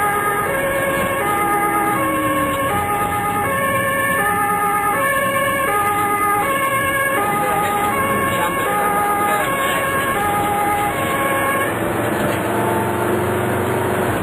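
German two-tone emergency vehicle siren (Martinshorn) on an ambulance, heard from inside the cab. It alternates steadily between a high and a low tone, each held for under a second, over engine and road noise, and cuts off near the end.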